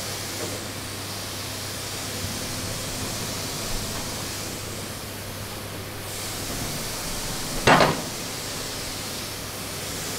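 Steady workshop hiss with a low hum, and one loud metallic clunk about three-quarters of the way through as a heavy steel tank suspension part is set down onto a steel press fixture.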